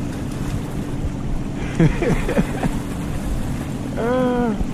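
Wind on the microphone and water sloshing around a wading angler, over the steady drone of distant motorboat traffic. A short hummed vocal sound comes near the end.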